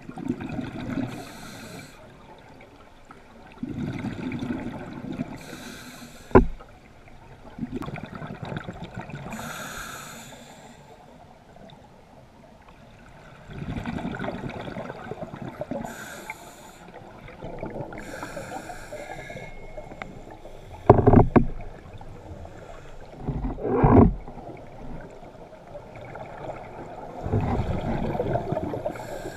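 Scuba diver breathing through a regulator underwater: a short hissing inhale, then a longer gurgling rush of exhaled bubbles, repeating every several seconds. A few sharp knocks stand out, louder than the breathing.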